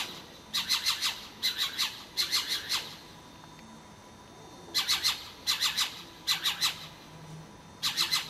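An owl calling at night: short bursts of rapid harsh, rasping notes, repeated in runs about twice a second, with a pause of almost two seconds in the middle.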